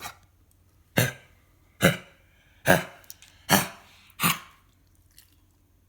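A dog coughing: a run of about six short, sharp coughs a little under a second apart, then stopping.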